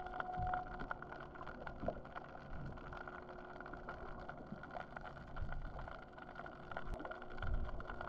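Underwater sound picked up by a GoPro in its waterproof housing: muffled low rumbles and knocks, the loudest near the end, over a steady faint hum.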